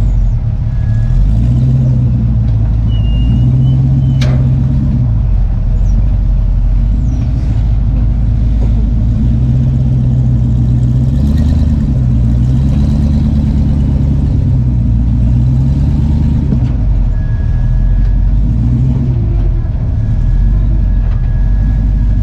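Rock crawler's engine running under load, its revs rising and falling over and over as it climbs a boulder ledge. One sharp knock about four seconds in.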